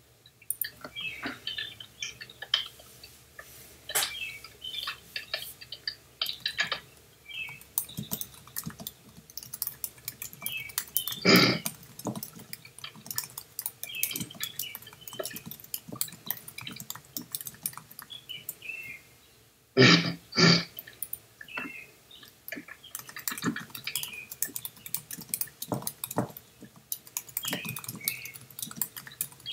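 Irregular clicking and tapping, most like typing on a computer keyboard, with three louder short noisy bursts: one about 11 seconds in and two close together around 20 seconds in.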